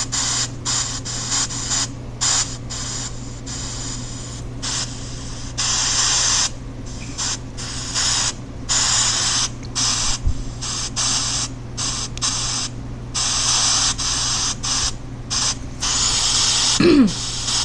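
Pink noise from a pink-noise chopping app, cut into bursts of hiss of uneven length with short gaps between them, the loudness stepping between softer and louder. A steady low hum runs underneath, and a brief pitched chirp comes near the end.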